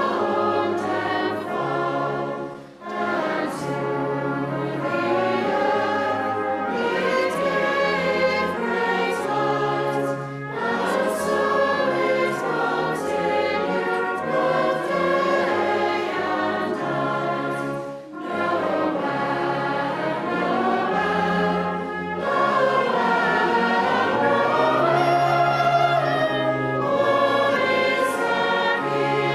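Choir singing a carol with instrumental accompaniment, in long phrases broken by brief pauses about three seconds in and again about eighteen seconds in.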